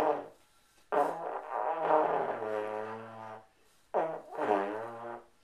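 A child blowing two notes on a trombone: a long note of about two and a half seconds that settles to a steady low pitch, then, after a short gap, a shorter note that wavers in pitch.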